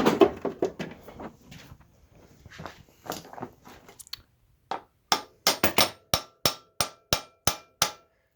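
A hammer tapping the rear axle out of a 1983 Kawasaki 750 LTD's swingarm: some light clattering first, then about a dozen sharp metal-on-metal strikes, roughly three a second, each with a short ring.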